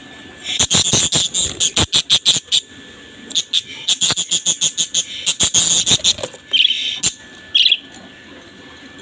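Budgerigars chattering in rapid runs of short, high chirps, two bursts of them, followed by two brief trills about seven seconds in.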